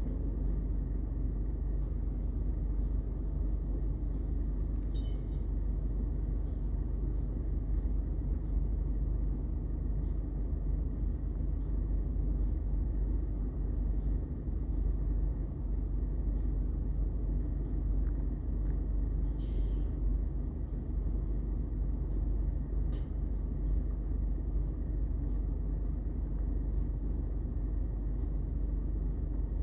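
Rear-loader garbage truck's diesel engine idling with a steady low rumble. A few faint clanks come from the wheeled bins being moved.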